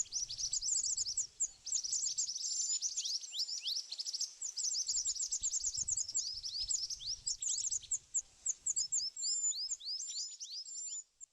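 Birds chirping: a dense, rapid run of short, high-pitched chirps, many sweeping downward in pitch, thinning out near the end.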